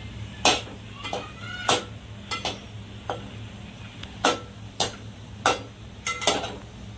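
Perforated metal skimmer clinking and scraping against an aluminium pot while scooping fried almonds out of hot oil: about a dozen sharp metallic taps at an uneven pace, some ringing briefly. A steady low hum runs underneath.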